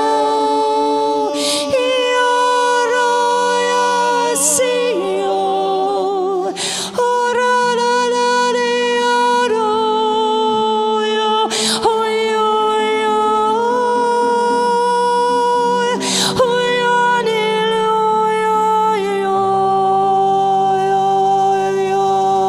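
Slow worship song sung in long held notes, some with vibrato, the pitch moving to a new note every few seconds.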